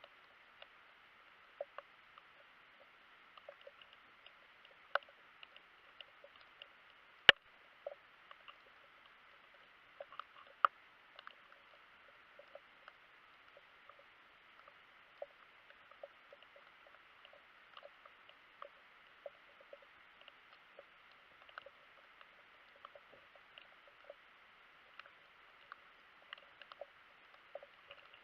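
Underwater ambience as picked up by a camera in a waterproof housing: a faint steady hiss with scattered, irregular clicks and pops, one sharp click about seven seconds in the loudest.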